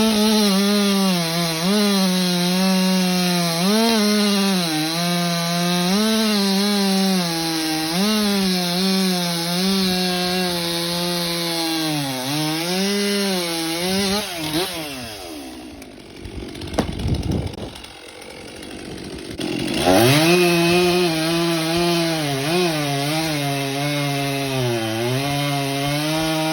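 Stihl MS 400 two-stroke chainsaw cutting ash wood, its engine pitch dipping and recovering over and over as the chain bogs under load. About fifteen seconds in, the engine winds down and runs low and quiet with a few knocks. About five seconds later it revs back up and cuts again.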